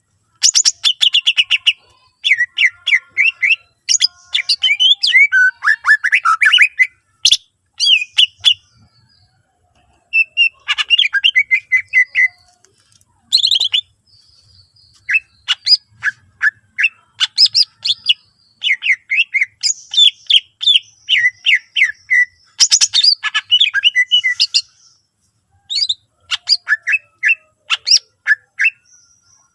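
Green leafbird (cucak ijo) singing a fast, busy song of chirps, trills and sweeping whistled notes, packed with mimicked calls of other birds, broken by a couple of short pauses.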